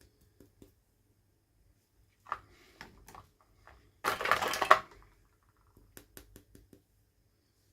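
Hands unboxing small plastic toys: a short rustle of packaging about two seconds in, a louder, longer crinkling rustle around four seconds, then a quick run of small sharp clicks near the end as pieces are handled.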